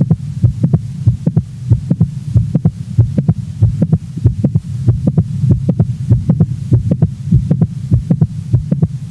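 Heartbeat heard through a stethoscope, with a mid-systolic click falling between the first and second heart sounds of each beat. This kind of non-ejection click is most commonly caused by mitral valve prolapse. The beats repeat regularly over a steady low hum.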